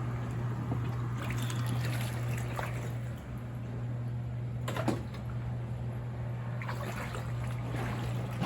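Water sloshing and trickling on a flooded basement floor, with a few short splashes, over a steady low hum from a running appliance motor.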